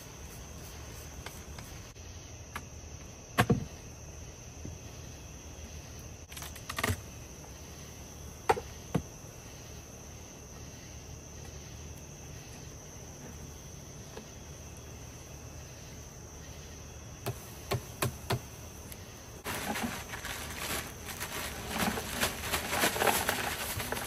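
Crickets trilling steadily, with a handful of sharp knocks as wooden beehive parts are lifted and set down. In the last few seconds comes a crackling, rattling rush: dry ice pellets poured from a plastic bag into a wooden hive box.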